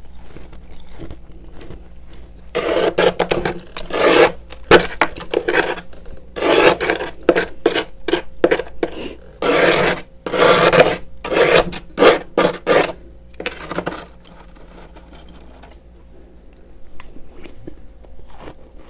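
Freezer frost being scraped off the freezer's walls in a run of about a dozen rough, rasping strokes. The strokes start about three seconds in and stop about fourteen seconds in, with quieter scattered clicks before and after.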